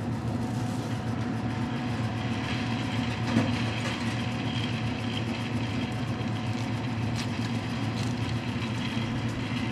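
A stick-welding arc hissing and crackling as it burns 1/4-inch 7018 rod, over an engine running steadily in the background.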